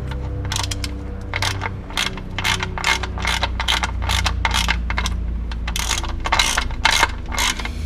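Ratchet wrench clicking in quick runs of short clicks as a socket on an extension screws in and tightens the engine oil sump plug.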